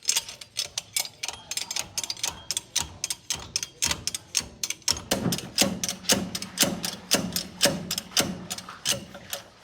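Ratchet wrench clicking rapidly and evenly, about five or six clicks a second, while fasteners are turned during engine assembly. The strokes grow heavier, with a low ring, about halfway through.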